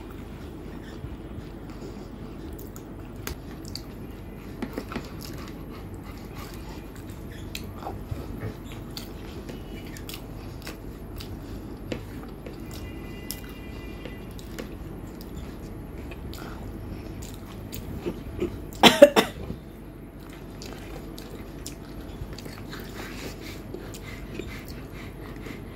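Eating sounds of rice and mashed potato eaten by hand: quiet chewing and wet mouth noises with scattered faint clicks over a steady low hum. About 19 s in, a short, loud vocal sound like a cough or throat-clear stands out.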